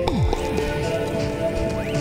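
Background music: an electronic track with sustained synth notes and deep bass hits that drop in pitch, repeating at a steady pace.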